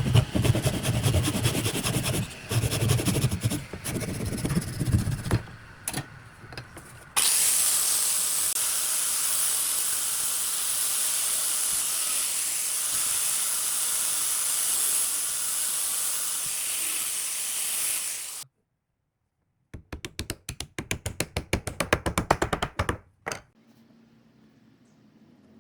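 Buzzing power-tool noise for the first few seconds, then a steady, loud hiss of compressed air for about eleven seconds that cuts off abruptly. After a short gap comes a quick run of rapid rubbing strokes.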